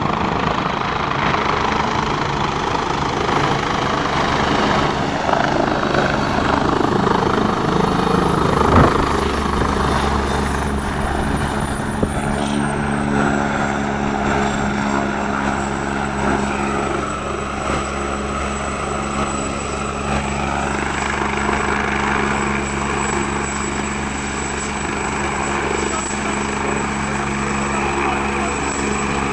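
Helicopter running close by: a steady rotor and engine sound with a high turbine whine that drops slightly in pitch a little under halfway through.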